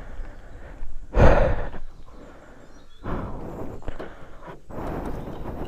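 Three stretches of scraping, rubbing noise from the metal exhaust silencer core being pushed back into the silencer of a Yamaha RX135 by hand; the engine is not running.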